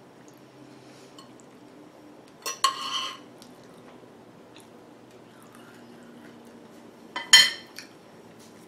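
Metal knife and fork scraping and clinking against a plate while cutting food, in two short bursts: one about two and a half seconds in, and a louder one near the end.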